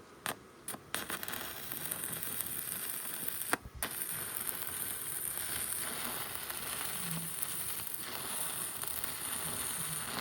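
Stick-welding arc crackling and sizzling steadily, starting about a second in after a few short clicks, with a brief break a little past three and a half seconds before it catches again.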